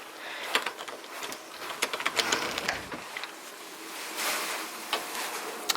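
A door being unlatched and pulled open with snow drifted up against it: an irregular run of small clicks and scrapes over a light rustle, with a sharp click near the end.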